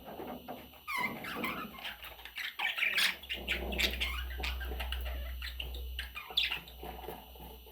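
Budgerigar chattering and squawking: a busy run of quick chirps, clicks and warbles.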